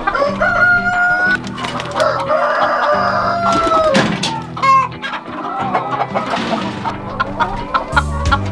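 Chickens clucking and calling, with two long drawn-out calls in the first four seconds, over background music with steady low tones.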